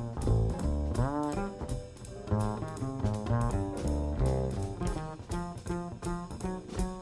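Upright double bass played pizzicato in a jazz solo: deep plucked notes and quick runs with sliding pitches, including a rising slide about a second in. Light, even ticks keep time behind it.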